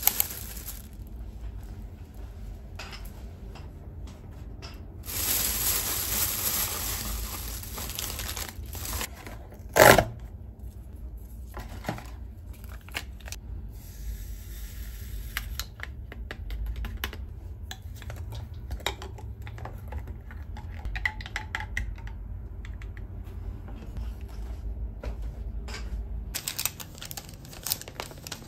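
Household handling sounds: plastic bag rustling, a few seconds of steady hiss, one sharp loud knock about ten seconds in, and scattered small clicks. Near the end comes the dense crinkling of a plastic food container and its wrapper being opened.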